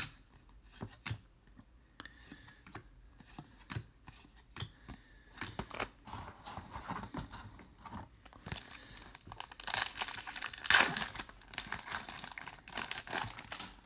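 Trading cards being shuffled and flicked in the hands, with faint taps and slides. From about eight seconds in, a foil card pack wrapper crinkles and tears for several seconds, loudest near the eleventh second.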